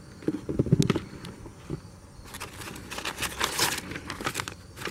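Paper liner inside a cardboard box being handled: a few soft knocks in the first second, then a stretch of crinkling and rustling from about two seconds in.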